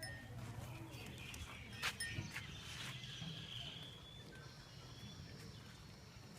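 Faint outdoor ambience: birds chirping over a low steady hum, with a sharp click about two seconds in.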